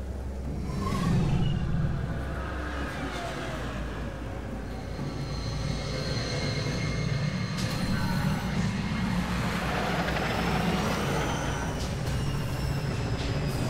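Science-fiction city sound design: a steady low traffic rumble with hovering vehicles passing, their engine whines gliding up and down in pitch, plus a few thin high tones and a couple of sharp clicks.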